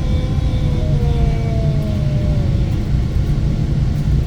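Steady low rumble of trains running, heard from inside a moving commuter railcar while a long CSX freight train passes alongside. Faint whining tones slide slowly down in pitch.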